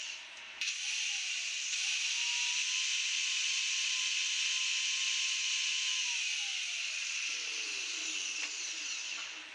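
Electric angle grinder switched on about half a second in and run at a steady speed, with a strong hiss, while held against a block of HDU sign board. It is switched off about six seconds in and winds down with a falling whine.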